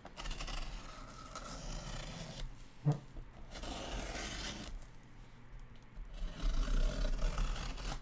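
Clear plastic protective film being pulled and torn off a cardboard box, crinkling and scraping in several long pulls, with a sharp snap about three seconds in.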